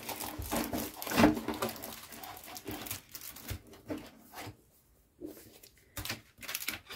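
Loose sheets of scrapbooking paper rustling and sliding as a stack is handled and sorted, in short irregular bursts with pauses, and a single knock about six seconds in.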